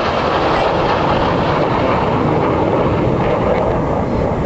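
BAE Hawk jets of the Red Arrows, with Rolls-Royce Turbomeca Adour turbofan engines, flying past. A loud, steady rushing jet noise that eases slightly near the end.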